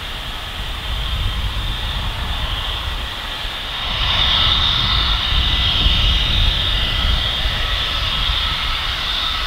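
Embraer E175 jet airliner's GE CF34 turbofan engines at taxi power: a steady high whine over a low rumble, growing louder about four seconds in.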